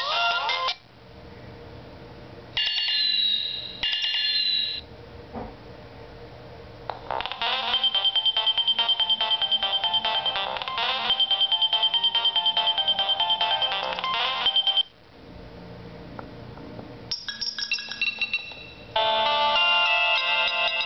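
A Nokia 3220 mobile phone plays its built-in ringtones one after another. Each is a loud electronic melody cut off after a few seconds: a short tune played twice, a busier one lasting about eight seconds, then two more, the last starting near the end.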